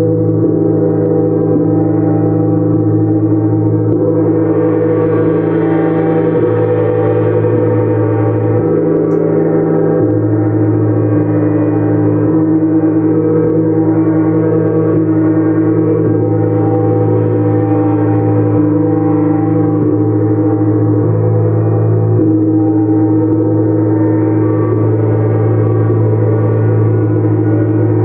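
Gongs sounding in a sound-healing gong bath: a dense, steady wash of many overlapping ringing tones, with no separate strikes standing out. The upper ringing brightens a little about four seconds in.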